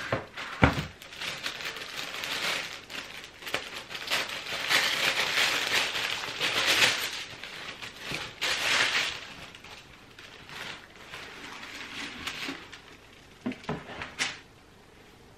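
Unpacking a cardboard gift box: a knock from the box lid about a second in, then tissue paper rustling and crinkling in waves for several seconds as it is folded back, with a few light knocks near the end.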